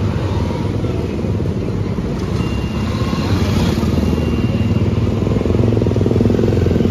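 Road traffic: motorcycle and car engines running past, with a motorcycle growing louder near the end as it passes close by.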